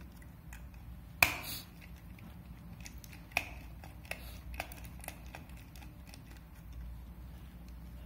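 Light clicks and ticks of a small 2.5-inch hard drive and its tiny PCB screws being handled on a wooden desk: one sharp click about a second in, a second click a couple of seconds later, then a few fainter ticks.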